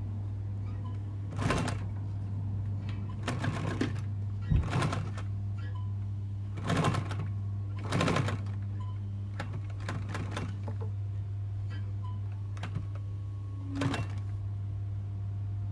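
Industrial sewing machine stitching a seam in several short bursts, each lasting well under a second, with pauses between as the fabric is guided. A steady low hum runs underneath.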